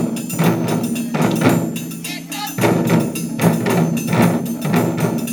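Japanese taiko drum ensemble playing a fast, steady rhythm, about three to four strikes a second, with sharp clacking hits over the ringing drum tones. The playing eases off briefly about two seconds in.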